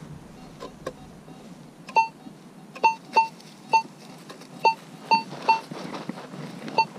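AKA Signum MFD metal detector giving about eight short, high beeps, each starting with a click, as its coil is swept back and forth over a buried target in black sand. The detector is set to normal power mode.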